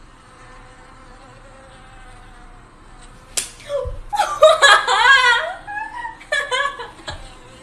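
A mosquito's whine played from a phone speaker held close to a sleeping man's head, faint and steady. About three seconds in comes a sharp slap, then loud startled cries from the man and a couple more slaps.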